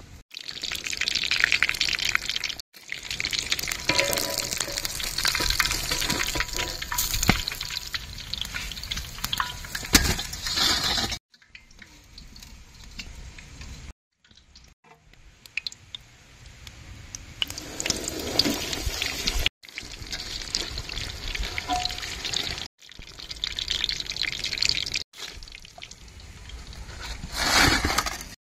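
Hot oil sizzling as breadcrumb-coated chicken pops deep-fry in a wok, heard as a hissing noise in several short takes that cut off abruptly and start again.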